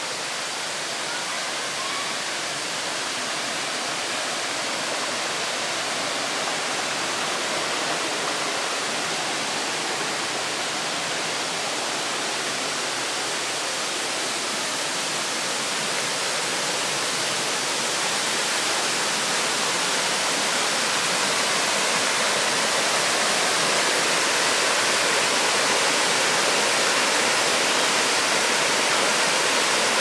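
Kuang Si waterfall's tiered cascades: a steady rush of water spilling over rock ledges, growing slowly louder as the falls come closer.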